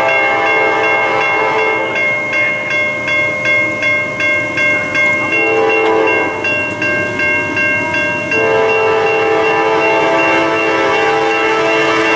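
Diesel freight locomotive horn, the lead GE D9-44CW of a Norfolk Southern train, blowing its crossing signal as it approaches a grade crossing: a long blast, a short one about five seconds in, then another long blast held from about eight seconds in. Between the blasts a grade crossing's warning bell rings steadily.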